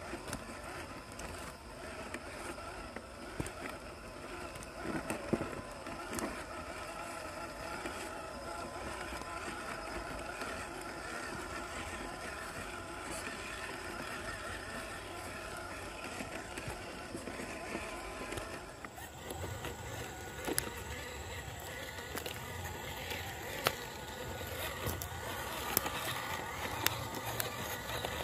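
The 180 brushed motor and stock gearbox of a WPL C54 Land Cruiser 80 RC crawler whining steadily as it drives, with scattered clicks and knocks from the tyres and chassis on the ground. The sound changes abruptly about two-thirds of the way through, with more low rumble and more clicks after that.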